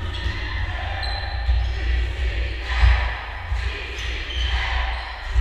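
Basketball bouncing on a gym floor during play, with background voices and scattered short knocks.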